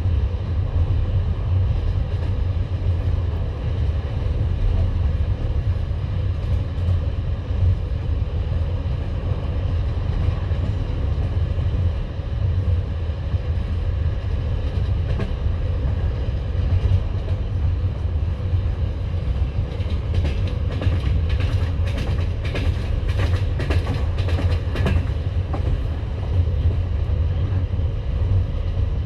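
Passenger train carriage running at speed, heard from inside: a steady low rumble with the wheels clacking over the rail joints. There is a run of sharper, faster clicks about twenty seconds in.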